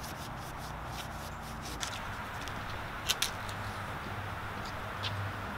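Steady outdoor background noise with a low hum, and a few light clicks about three seconds in.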